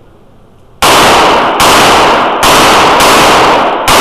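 Five revolver shots, roughly three-quarters of a second apart, each followed by long echo that carries into the next in the indoor range.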